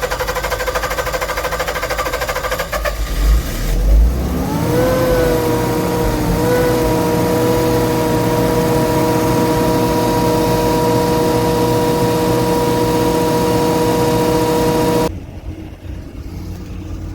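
Generac SG230 generator's 14.2-litre natural-gas engine starting up and running. After a couple of low thumps a few seconds in, its whine rises and settles into a steady running tone, which cuts off abruptly near the end.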